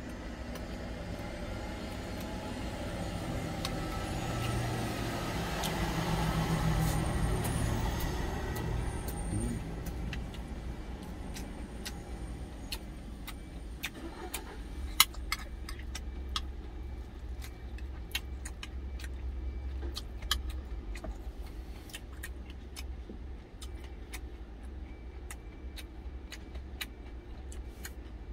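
A metal spoon clicking and scraping against a glass food container, with chewing, over a steady low vehicle rumble heard inside a truck cab. The rumble swells for a few seconds, between about four and nine seconds in.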